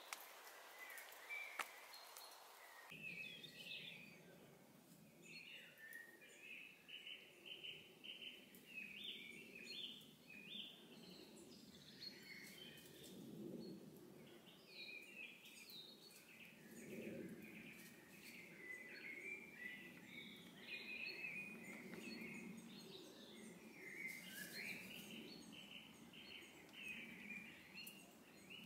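Faint woodland birdsong: many short, quick chirps and twittering phrases overlapping, taking up from about three seconds in.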